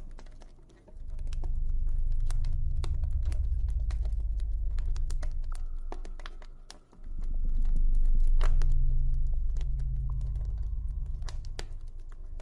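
Campfire crackling with irregular sharp pops over a deep, low ambient drone. The drone fades almost out about a second in and again around seven seconds, then swells back.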